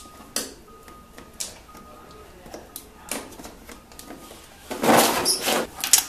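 Wiring harness and plastic connectors being handled: scattered small clicks and rustles of wire and plastic, with a louder scraping rustle lasting about a second near the end.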